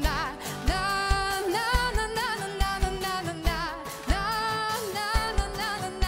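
Live band playing a song intro: a steady kick-drum beat under a wavering melody line.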